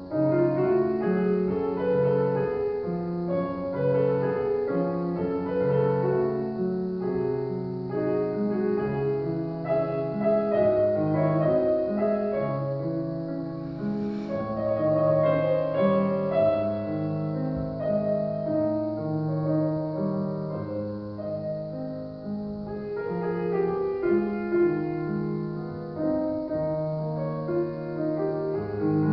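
Solo grand piano playing a Romantic-era classical piece in a large hall: a steady flow of melody and chords over a low bass line.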